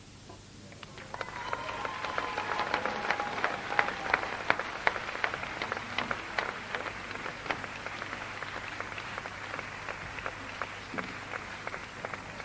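Theatre audience applauding, swelling up about a second in and then going on steadily, with single claps standing out in the crowd noise.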